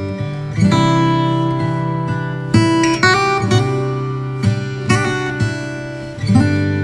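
Background music: acoustic guitar strumming chords, with a new strum every second or two.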